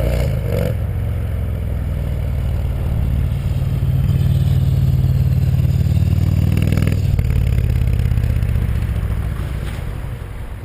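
Yamaha MT-01's big air-cooled V-twin running loud and deep through a full titanium Akrapovic exhaust with no catalysts or EXUP valve, a steady pulsing beat under load. There is a brief change in the note about seven seconds in, and the sound fades away near the end.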